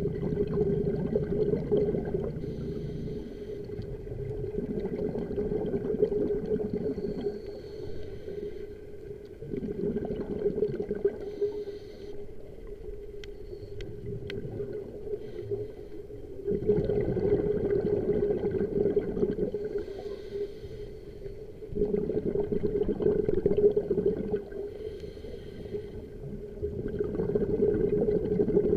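Scuba diver breathing underwater through a regulator: a rush of exhaled bubbles every few seconds, over a steady low hum. Two faint clicks come about halfway through.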